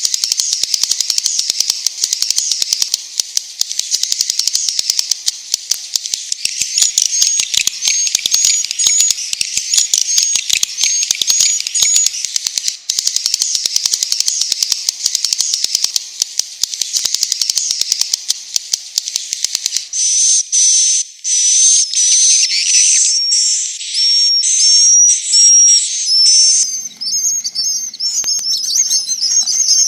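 A flock of swiftlets twittering and chirping densely, with rapid fine clicks mixed in. About two-thirds of the way through, the calls break into separate bursts of wavering chirps. This is a recorded swiftlet roosting ('inap') call, the kind played in swiftlet houses to get the birds to settle for the night.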